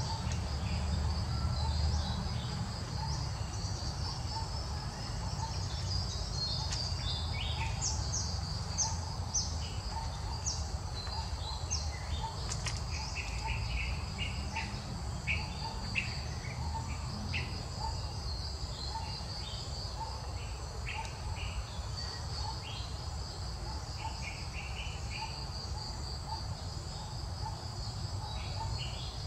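Steady trilling of insects such as crickets in the background, pulsing without a break. Short, high chirps come and go through the middle.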